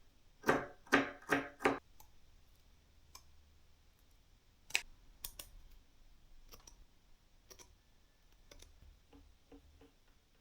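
A quick run of four hard knocks, then a single sharp click a few seconds later and scattered lighter clicks and taps.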